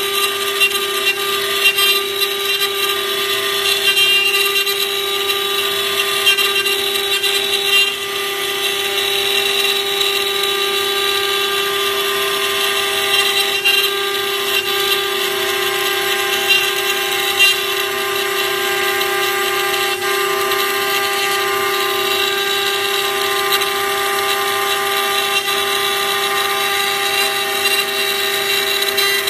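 CNC flatbed cutter's router spindle milling through an acrylic sheet: a steady whine with small, irregular ticks as the bit cuts the plastic.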